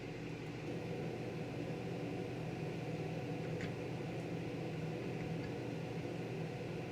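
Steady low machine hum, with one faint tick about three and a half seconds in.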